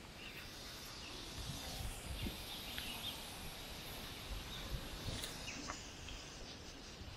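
Open-air ambience with a few short bird chirps over a steady high hiss, and scattered low thuds of walking and camera handling.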